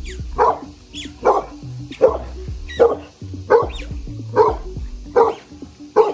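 A dog barking repeatedly at an even pace, about one bark every three-quarters of a second, eight barks in all.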